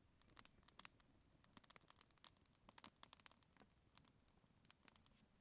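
Faint, irregular crackling and small pops of a freshly lit campfire burning split wood.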